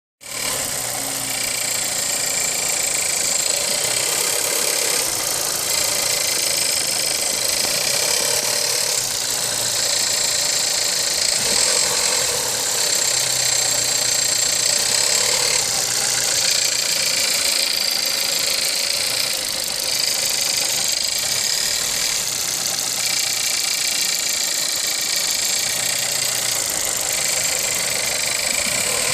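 2015 Skoda Fabia Combi's 1.2 TSI turbocharged four-cylinder petrol engine running steadily, with a strange rattling noise whose cause the owner does not know.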